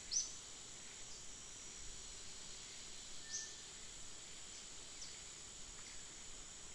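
Outdoor ambience: a steady high-pitched insect drone, with short bird chirps a few times. The loudest chirps come just after the start and about three and a half seconds in.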